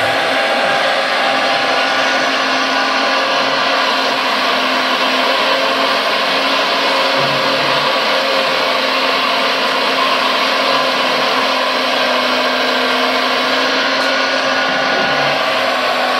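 Premacon Liebherr R956 RC excavator working: a steady whir from its hydraulic drive mixed with the electronic diesel-engine sound of its onboard sound module, going on without a break while it digs and swings.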